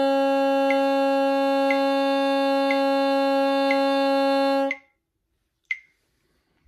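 Bassoon reed played on the bocal alone, holding one steady buzzing long tone for about eight counts and stopping abruptly near the end. A click keeps time once a second throughout.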